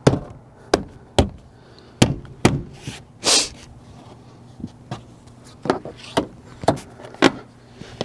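Plastic interior trim panels being pushed and knocked into their clips by hand: a string of sharp, separate knocks and clicks, with a short scraping rush about three seconds in.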